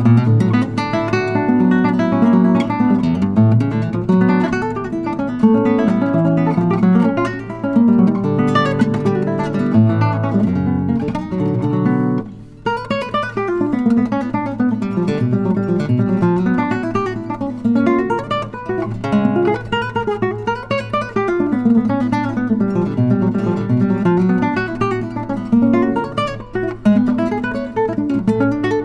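Solo classical guitar played fingerstyle, with runs of plucked notes and chords. The playing breaks off briefly about twelve seconds in, then resumes.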